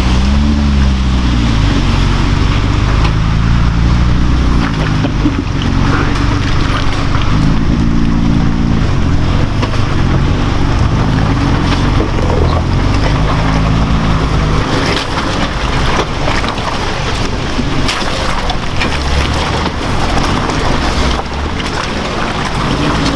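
An off-road 4x4 truck's engine working through deep water, revving up and down several times. About two-thirds of the way through, the steady engine note gives way to a rougher wash of water and splashing.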